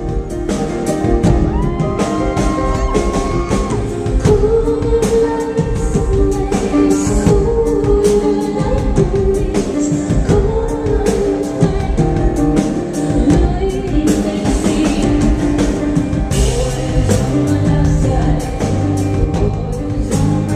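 Live concert music: a woman singing over a full band with a steady drum-kit beat.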